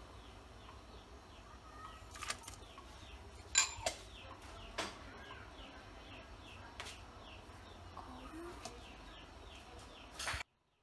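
Chickens chirping and clucking: a run of short, high, falling chirps, about three a second, with a few sharp clicks over a low steady hum. The sound cuts off abruptly near the end.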